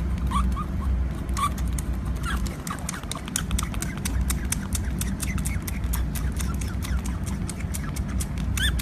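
Otter pup suckling from a feeding bottle: quick wet smacking clicks, several a second, with short high rising squeaks now and then, a few near the start and again near the end, over a low steady rumble.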